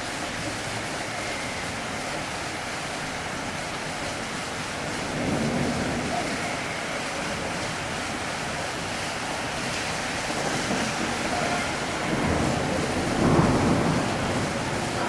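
Rain pouring steadily in a thunderstorm, with low rumbles swelling about five seconds in and again near the end.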